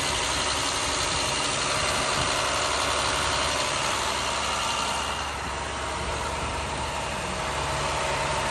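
Diesel engine of a 2009 International 4400 truck idling steadily, which the inspector reports as showing zero blow-by at the open oil filler. The sound drops a little about five seconds in.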